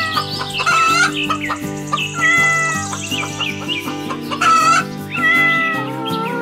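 Chickens clucking and a rooster crowing over instrumental background music with steady held notes.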